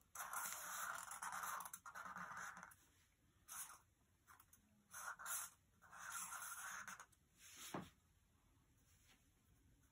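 Pen tips writing on sketchbook paper: scratchy strokes in runs of a second or two, with short pauses between letters and one sharper, shorter stroke near the end.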